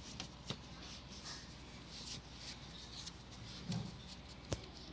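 Quiet room tone with a few faint, sharp clicks and light rustling.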